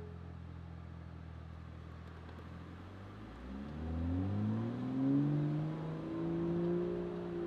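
Toyota GR Supra MK5's B58 turbocharged straight-six engine running with a low steady hum, then about three seconds in accelerating, its pitch rising smoothly and levelling off near the end.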